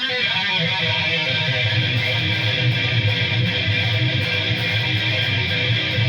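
Ibanez ICTB721 seven-string electric guitar with DiMarzio D Activator pickups, played through a distorted amp in an improvised rhythm riff of low, chugging chords.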